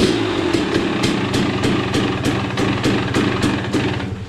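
300cc two-stroke dirt bike engine idling, with a regular crackle about four times a second. It cuts off suddenly near the end.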